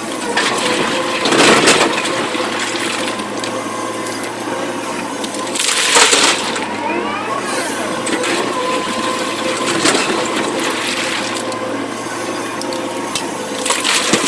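SANY SY225 excavator working: a steady engine and hydraulic hum, broken about every four seconds by a loud crunching burst of rock and earth being scooped or dumped. The loudest burst comes about six seconds in.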